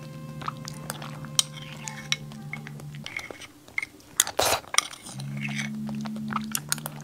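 Metal spoon clicking and scraping against a small glass cup of mango dessert, with soft chewing and eating sounds and one louder noise about four and a half seconds in. Background music with low held notes drops out about three seconds in and comes back near five.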